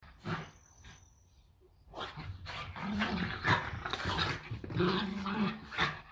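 Two dogs play-fighting, growling at each other almost without a break from about two seconds in, with a short sound just before that.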